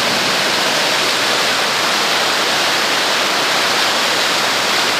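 Steady, even rush of falling or pouring water, with no break or change.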